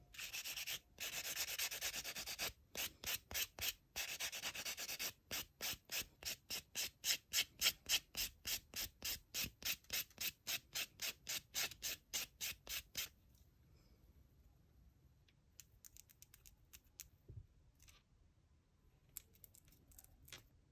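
Foam nail sanding block rubbed across long clear nails to smooth their surface: a few continuous scrubs, then quick back-and-forth strokes about three a second, which stop after about 13 seconds. Faint small clicks follow.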